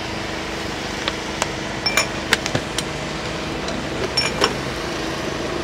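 Glass tumblers clinking and tapping several times as soaked basil seeds are spooned into them. Some of the clinks ring briefly. A steady hum runs underneath.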